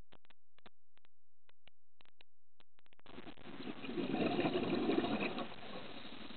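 Scuba diver's exhaled breath bubbling out of the regulator underwater: a gurgling rush of bubbles starting about three seconds in and loudest around four to five seconds. Before it come only scattered faint clicks.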